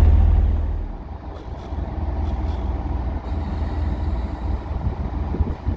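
Low rumble of a diesel passenger train at a station platform. It is loud at first, eases off about a second in, then holds steady.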